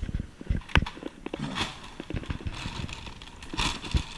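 Rustling and irregular knocks and thumps of bags, clothes and boxes being handled and moved close to the microphone during a search.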